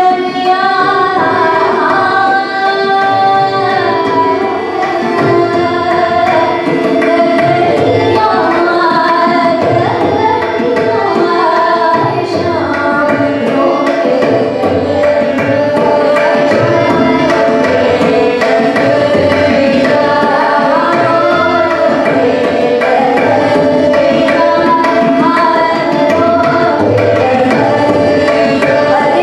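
Hindustani classical vocal music: a woman singing a bandish, accompanied by tabla playing a steady rhythm, over a held drone.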